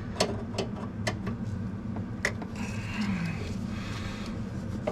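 Scattered clicks and knocks of a hand tool on a corroded brake line fitting, with a short stretch of scraping a little past halfway, as the seized fitting is worked at over a steady low hum.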